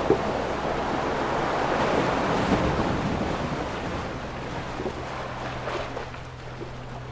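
Ocean waves washing onto a shore: a surge of surf that recedes and grows quieter over the second half.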